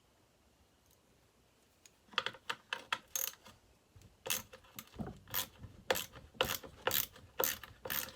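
Ratchet wrench clicking as a bolt is backed out of a Homelite XL-12 chainsaw, starting about two seconds in as a run of sharp clicks, two or three a second.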